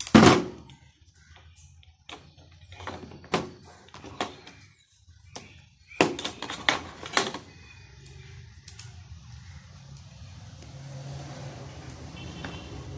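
Clicks and knocks of a screwdriver, wires and electrical parts being handled on a wooden table: a sharp knock at the start, a few scattered clicks, then a cluster of knocks about six seconds in. A low steady hum runs under the last few seconds.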